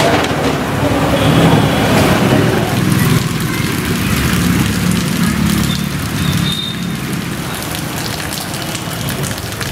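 Floodwater splashing as people wade and a bicycle rides through a flooded street: a steady rain-like wash of water noise with a low rumble, heavier in the first three seconds.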